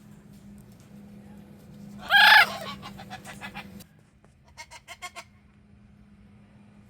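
A parrot gives one loud, short squawk about two seconds in, followed by a quick run of faint clicks and a few short, rapid chirps a little past the middle.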